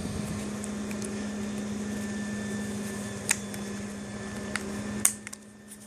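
A few light, sharp clicks of a hair clipper being handled, over a steady low hum.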